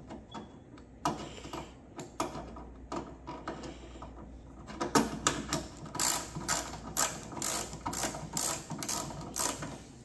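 Hand ratchet with a 15 mm socket clicking as it tightens the bolts of a new engine mount. Scattered clicks at first, then from about halfway a steady run of ratcheting strokes, roughly two a second.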